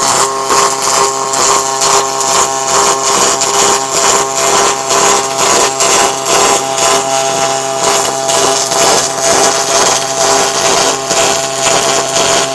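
MIG welding arc on aluminium: a loud, continuous hiss and hum with fast crackle, held through one long bead without a break.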